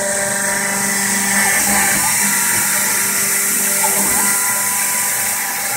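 CNC engraving spindle cutting a laminated plastic sign, a steady high-pitched hiss, with the dust-extraction vacuum drawing through the spindle's dust shoe.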